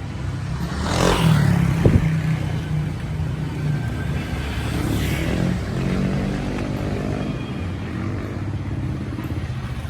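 Motorcycle engine running, rising in pitch about a second in and again around five seconds in, with a sharp click about two seconds in.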